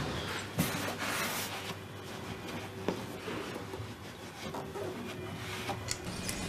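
Hand fitting-out work in a small room: rubbing and scraping noises, loudest around a second in, with a few sharp clicks over a faint steady hum.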